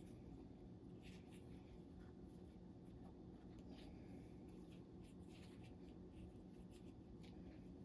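Near silence: faint, scattered light scrapes and clicks of small hand work, over a steady low room hum.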